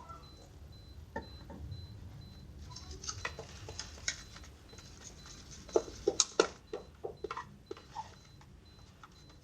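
Slime being squeezed and poked by hand: a run of small wet clicks and pops, busiest and loudest about six seconds in.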